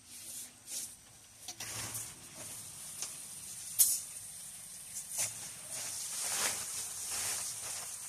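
Water pooled on a pop-up canopy's fabric roof spilling off in uneven, hissing rushes as the sagging fabric is pushed up, with the fabric rustling. A sharp click comes a little before four seconds in.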